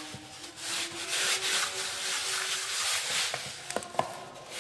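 Hands kneading and gathering dry, crumbly whole-wheat dough in a wooden bowl: a rubbing, scraping sound of dough and flour dragged against the wood in repeated strokes, with a couple of small clicks near the end. The dough is still rough and short of water.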